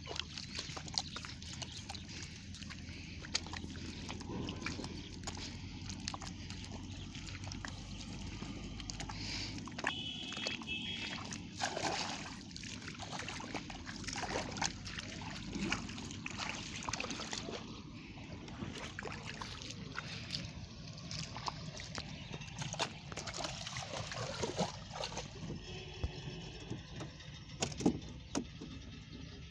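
Bare feet squelching and sloshing through soft mud and shallow water in irregular steps, with small splashes.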